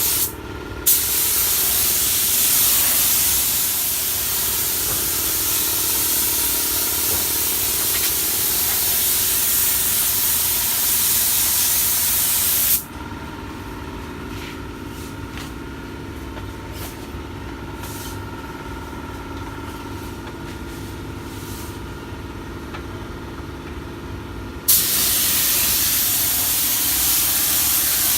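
Air-powered paint spray gun hissing steadily as it sprays the engine bay. The trigger is let off briefly just after the start and again for about twelve seconds in the middle, leaving a quieter steady hum. Spraying resumes abruptly near the end.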